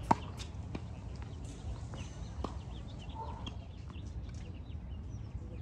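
Tennis ball struck with a racket on a hard court: a sharp pop just after the start from a forehand close by, then fainter hits and bounces from farther down the court, with a brief squeak about three seconds in.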